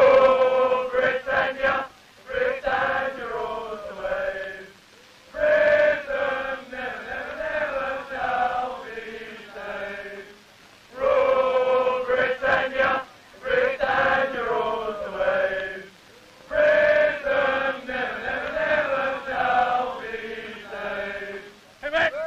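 A group of scouts singing a chant-like camp song in four phrases of about five seconds each, with short breaks between them.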